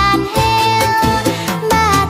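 Background music: a lively melody over a steady, repeating bass line.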